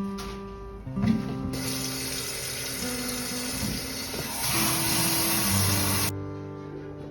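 Water running from a tap, a steady rush that grows stronger partway through and then stops suddenly, over background music.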